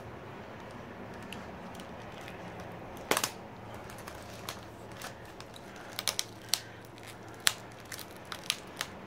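Scissors snipping at masking tape and the plastic of an inflatable air-column packing wrap, heard as scattered sharp clicks. There is one snip about three seconds in and a quick run of snips in the last three seconds.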